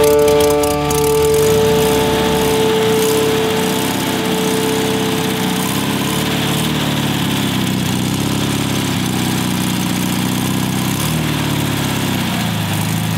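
Freshly rebuilt VW Beetle air-cooled flat-four engine running at idle on a test stand, warming up after its first start. Its speed shifts briefly near the end as the carburettor is worked. A held music note fades out over the first few seconds.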